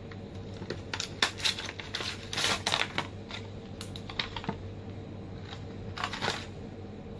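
Handling noise of a plastic phone case and its packaging: a scatter of light clicks and knocks with bursts of plastic crinkling, busiest in the first few seconds and again about six seconds in. A faint steady hum runs underneath.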